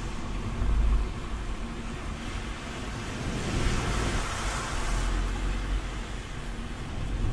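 Inside a moving car on a wet road: the steady low rumble of engine and road, with tyre hiss that swells and fades again about halfway through.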